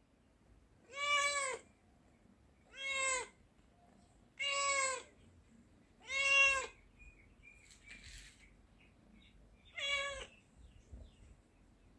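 Domestic tabby-and-white cat meowing five times, each meow about half a second long and rising then falling in pitch. The first four come about every one and a half to two seconds, and the last follows after a pause of a few seconds.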